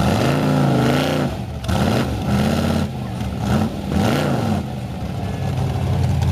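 Chevrolet Corvette V8 engine being revved in several throttle blips, its pitch rising and falling each time, then settling to a steady idle about two-thirds of the way in.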